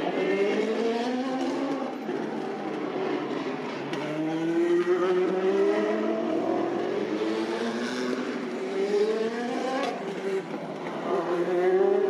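Racing car engines accelerating away through the gears, each engine note climbing in pitch and dropping back at an upshift, several times over.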